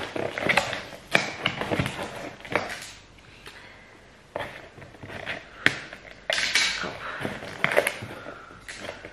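Parcel packaging being handled and torn open: irregular crinkles, rips and sharp clicks, busiest in two short rustling spells in the second half.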